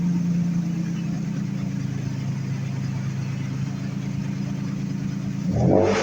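Toyota FJ Cruiser's 4.0-litre V6 idling steadily through its exhaust, then blipped up in a short rev near the end.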